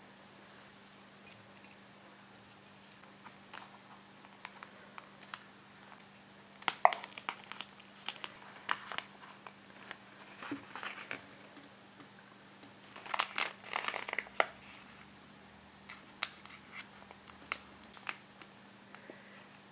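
Thin clear plastic candy molds crinkling and crackling as hands flex them to pop out gummy candies, in scattered clicks and short bursts, the loudest about a third of the way in and again about two-thirds in. A faint steady hum runs underneath.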